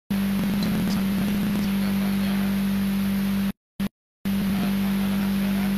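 Steady loud electrical buzz: a low hum with hiss over it that holds one level. It cuts out abruptly about three and a half seconds in and comes back about half a second later.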